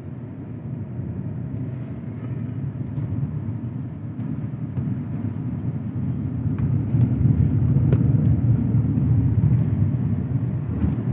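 Car interior road noise while driving: a steady low rumble of engine and tyres heard from inside the cabin, growing louder about halfway through.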